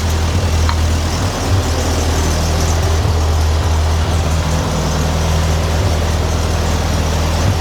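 1955 Ferguson TEA-20 tractor's four-cylinder petrol engine idling steadily.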